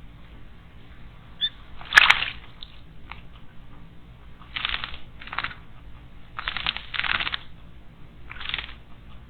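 A small bird bathing in a stone water basin: a series of short splashes and wing flutters. The loudest comes about two seconds in with a sharp click, and several more are scattered through the rest.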